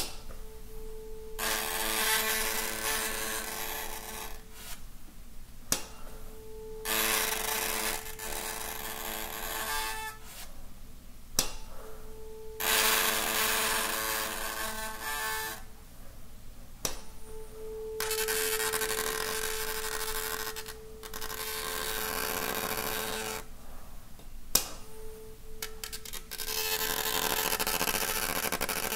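A 440 Hz tuning fork rings a steady tone while held in weak contact with a strip of paper, which buzzes against the prongs with a hissy rattle. This is the paper-contact setup meant to bring out an undertone below the fork's pitch. The tone comes in about five stretches of several seconds, with short breaks and a few sharp hammer taps between them.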